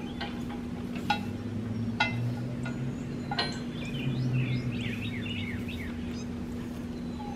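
Steel log arch clanking on the trailer as it is tipped upright: three sharp metallic knocks, each with a brief ring, about a second apart. Birds chirp a few seconds in, over a steady low hum.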